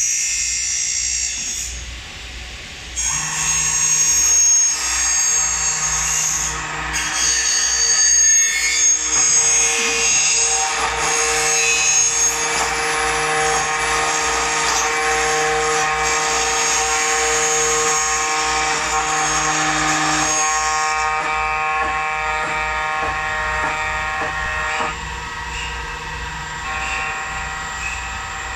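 Milling machine's motor running and its cutter milling a drainage slot in an aluminium window profile, a steady machine whine with high cutting noise that starts a few seconds in. A song plays underneath.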